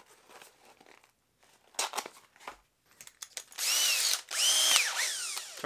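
Cordless drill run in two short bursts, its motor whine rising and falling each time, while a quarter-inch steel rod is being chucked up in it. Some handling clicks come first.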